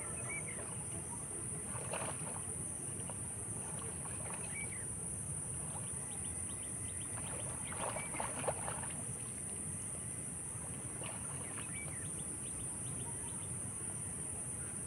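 A steady high-pitched insect drone, with faint bird chirps and short calls several times over it.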